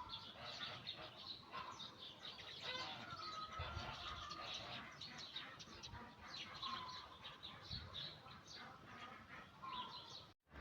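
Small birds chirping and calling, many quick overlapping chirps with a few short whistled notes.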